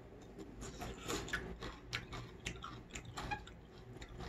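A person chewing a crisp bite of cucumber from a bowl of cold noodle soup, close to the microphone: irregular crunches, thinning out near the end.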